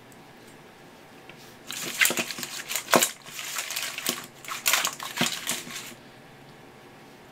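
Cut pieces of raw swimming crab shell clattering and crunching against each other and a stainless steel bowl as the bowl is shaken and the pieces are tossed by hand to coat them with salt. The rattling starts about two seconds in, with several sharp knocks, and stops about six seconds in.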